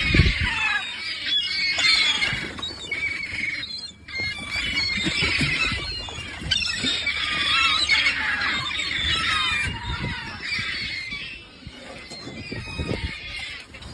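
A flock of seagulls calling and squawking, many short high calls overlapping, thinning out for a moment near the end.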